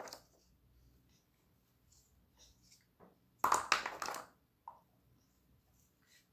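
Mostly quiet, with small plastic play-dough tools being handled on a plastic tray; about three and a half seconds in comes a short burst of clattering and rustling, then a single small knock.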